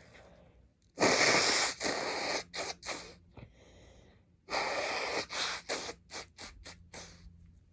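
A person blowing their nose hard twice, each long blow followed by a few shorter puffs, clearing a nose stuffed up from an allergic sneezing fit.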